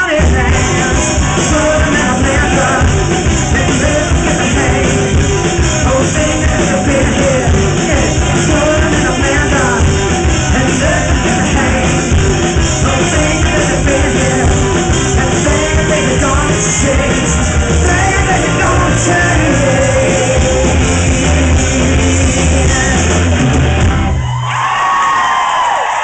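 Live rock band playing loud, with a woman singing and shouting into the microphone over electric guitar. The band stops abruptly about two seconds before the end, and the crowd starts cheering.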